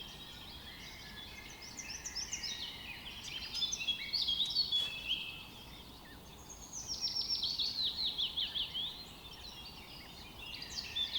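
Several songbirds singing and chirping over a soft hiss, with a fast run of repeated falling notes about two-thirds of the way through.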